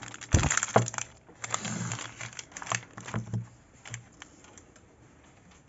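Thin plastic bags crinkling, with small clicks and taps as bagged gel-polish bottles are handled and set down on a table. Busiest in the first second, sparser after, and quiet from about four seconds in.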